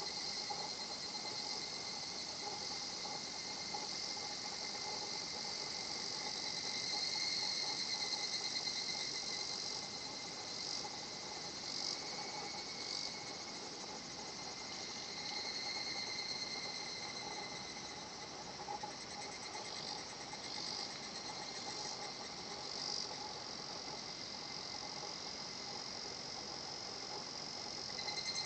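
Higurashi evening cicadas calling in a chorus of rapid, pulsing "kana-kana-kana" trills that overlap, swelling and fading through the stretch.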